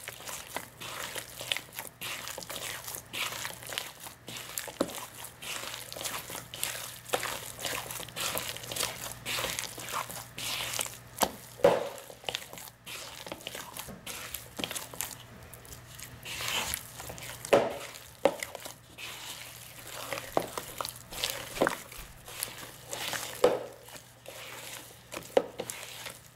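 Hand beating soft corn masa for tamales in a plastic bowl, working the oil in: a run of wet, irregular squelches and slaps, with a few louder smacks.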